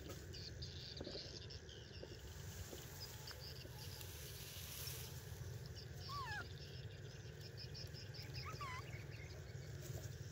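A few short, high gliding chirps from an animal, one about six seconds in and a small cluster near eight and a half seconds, over a steady low rumble.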